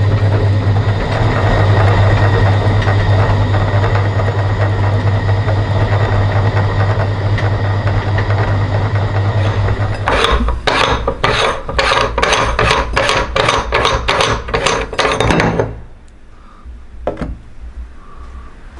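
Metal meat grinder running steadily with a low hum as it grinds jelly candy. About ten seconds in it gives way to quick rasping scrapes of the grinder's metal parts, about three a second, which stop abruptly, followed by a single click.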